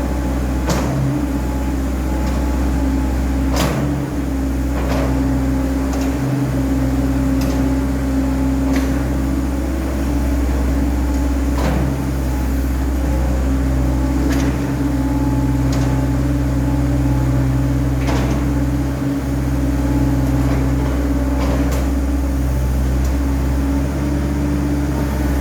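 Caterpillar 307D mini excavator's diesel engine running steadily, with scattered sharp clicks and knocks every second or two.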